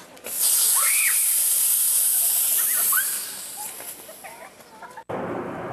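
Sprinkler system bursting on with a loud hiss of spray that starts suddenly, holds for about three seconds and then dies away. A few short high-pitched squeals from children sound over it.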